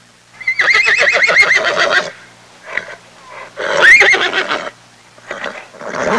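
Horse whinnying: a long quavering whinny starting about half a second in, a second whinny around four seconds in, and shorter calls near the end.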